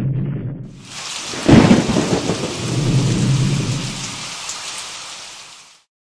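Thunderstorm: a low rumble of thunder, then steady rain hissing from about a second in, with a loud thunderclap soon after and more rolling rumble. It all cuts off suddenly near the end.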